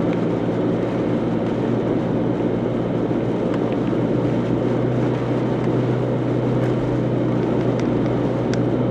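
Steady road and engine drone heard inside a car's cabin while driving on a snow-covered road, with a low hum that grows stronger about four seconds in.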